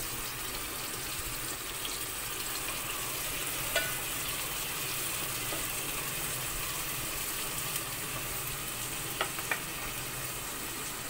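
Sliced onions sizzling steadily in hot oil in a metal pot, with a few taps and scrapes of a metal spatula against the pot as they are stirred.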